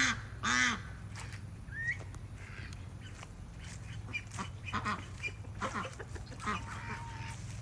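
Farm ducks quacking: two loud quacks right at the start, then scattered softer quacks and calls.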